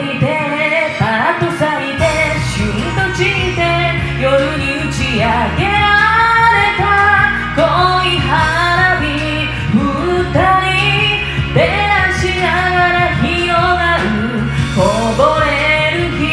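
Cover vocal of a Japanese pop ballad sung over its backing track, the melody line running through. A steady bass comes in about two seconds in.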